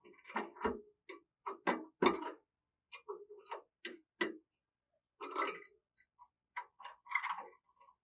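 Spotted dove moving about close to the camera: a string of light taps and knocks at uneven intervals, with a short gap about halfway through.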